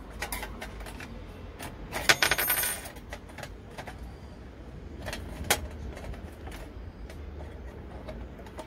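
Sheet-metal heating-element plate of a sandwich toaster clinking against the housing as it is handled and fitted back into place. There are scattered light clicks, a short rattling clatter about two seconds in, and a sharper click about five and a half seconds in.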